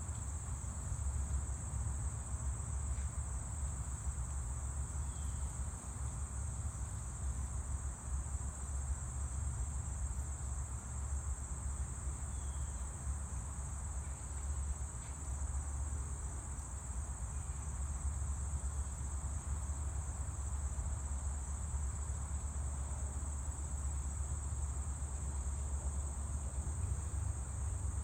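Insects singing in a steady high-pitched drone, with a low steady rumble underneath.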